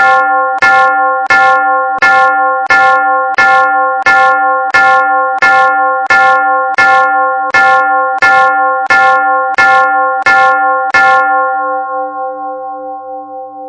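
Church bell struck at a fast, perfectly even pace by an automatic electromechanical ringer, about three strokes every two seconds. The strokes stop about eleven seconds in and the bell rings on, fading.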